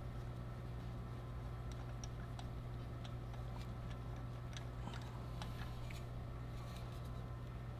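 Faint, irregular light metallic clicks from a new spark plug being threaded in by hand with a deep socket, over a steady low hum.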